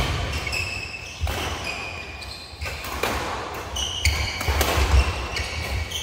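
Badminton doubles rally: several sharp racket hits on the shuttlecock, the loudest at the very start, with shoes squeaking briefly and feet thudding on the court mat between shots.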